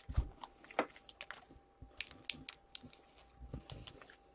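Hockey card packs and cards being handled: scattered light crinkles and clicks of wrappers and cardboard.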